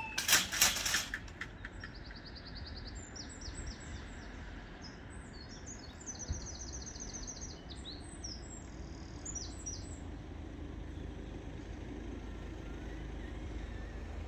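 A 1970s GWE Mk.1 drive-down level crossing barrier clattering several times as it settles onto its rest. Then birds chirping over a low steady outdoor rumble.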